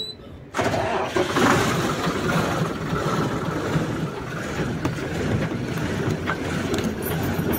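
A heavy truck's diesel engine catches abruptly on the self-starter about half a second in, then keeps running with a steady rumble. It fires on the first try after a battery swap cured its failure to start on the starter.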